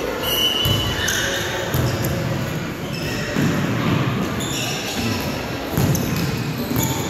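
Echoing gym hall during an indoor soccer game: spectators' voices and shouts, with the thuds of the ball being kicked and bouncing on the hardwood floor and short high squeaks from players' shoes.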